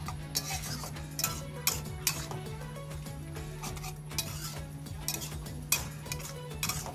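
Metal spatula scraping and clanking against a steel wok as noodles, shrimp and vegetables are stir-fried, in irregular strokes with one sharper scrape late on.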